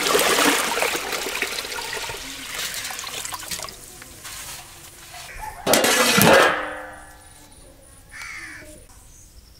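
Water poured into a large aluminium pot of rice, splashing and gushing, then dying away over the first few seconds. About six seconds in comes a loud sudden knock with a short ringing after it.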